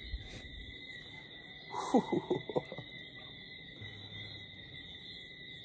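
Insects trilling steadily at a high pitch. About two seconds in comes a short run of falling animal calls.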